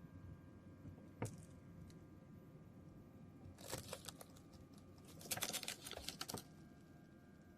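A single sharp click, then two groups of quick light clicks and taps, the second longer and denser, over a faint steady hum.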